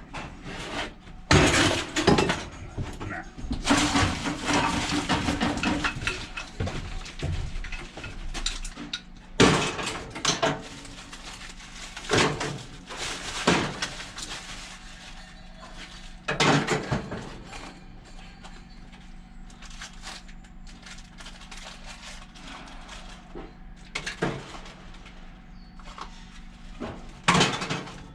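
Scrap metal being handled and dropped: a run of irregular metallic crashes and clatter, busiest about four to six seconds in, then single crashes every few seconds.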